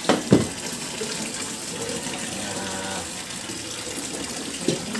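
Steady rushing background noise, with a few short clicks and rustles as food and a plastic bag are handled, the sharpest right at the start and one just before the end.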